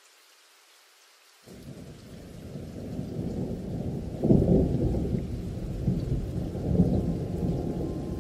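A low rumble that starts suddenly about a second and a half in and builds, swelling loudest about four seconds in and again near the end.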